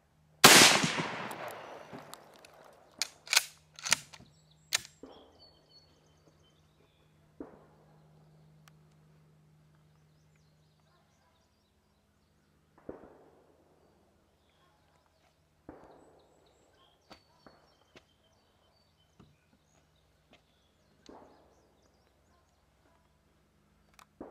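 A single loud rifle shot from a Mosin-Nagant in 7.62x54R, with a long echoing tail, followed a few seconds later by four sharp clicks as the bolt is worked to eject and rechamber. Fainter bangs follow every few seconds after that.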